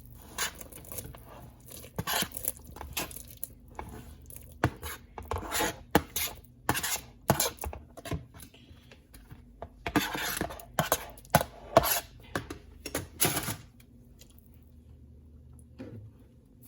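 Spoon clinking and scraping against cookware again and again, irregularly, as deboned chicken meat is added to a pot of dumplings; the clatter stops a few seconds before the end.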